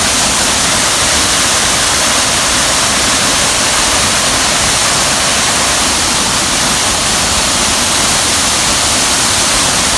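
Waterfall: a steady, loud rush of falling water that does not change.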